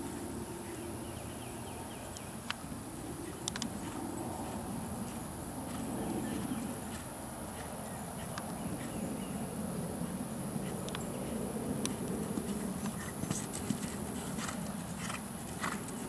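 Horse cantering on a sand arena, its hoofbeats dull, rolling thuds on the soft footing, with sharp clicks and knocks in the last few seconds. A steady high-pitched whine sits over it.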